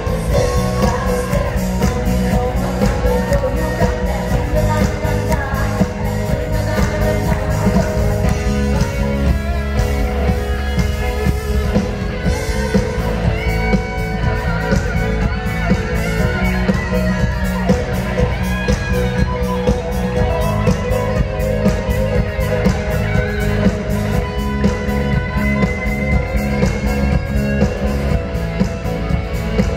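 Live band playing a rock-style song, with a singer and guitar over a steady beat, heard through the hall's sound system.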